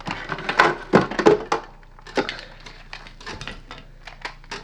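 Handling noise of an old hard drive and its tangle of cables being brought out and moved about: a quick run of knocks, clicks and rattles in the first second and a half, then scattered clicks and knocks.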